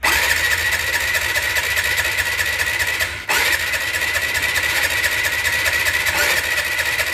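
Motorcycle engine turned over by its electric starter with a compression gauge in the spark-plug hole, cranking in a steady rapid rhythm of compression strokes without firing, in two runs with a short break about three seconds in. This is a cranking compression test, with the gauge building toward about 40 psi.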